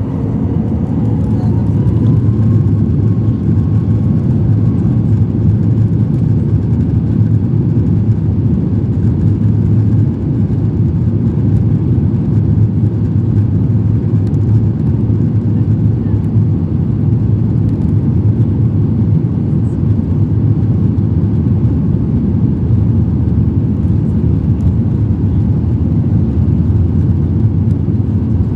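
Airliner jet engines spooling up for takeoff: a whine rises over the first couple of seconds, then a loud, steady, low rumble continues through the takeoff run.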